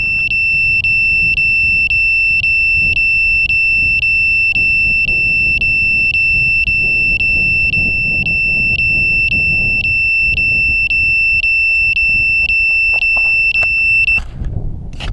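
An FPV drone's piezo buzzer sounds a steady, shrill high beep, pulsing about twice a second, then cuts off suddenly near the end. Low rumbling wind noise runs underneath.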